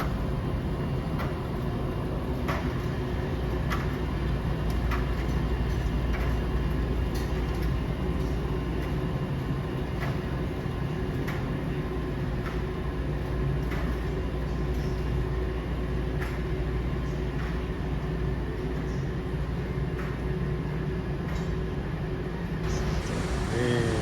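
Coin-laundry washing machines and dryers running: a steady low rumble and hum with scattered light clicks every second or so.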